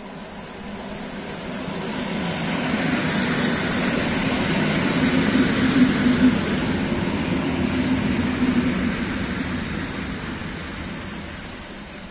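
EN57 electric multiple unit running along the platform past the microphone: a rumble of motors and wheels on rail that swells as it comes close, peaks about halfway through with a few sharp knocks, then eases off.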